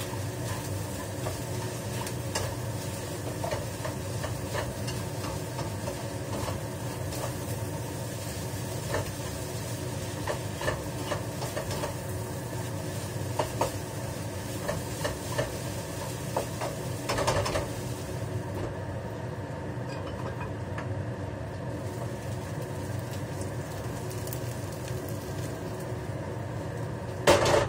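Chicken, onion and egg fried rice being stir-fried in a pan: a spatula scraping and clicking against the metal over a steady sizzle and hum. Near the end the pan clatters loudly as it is lifted and moved.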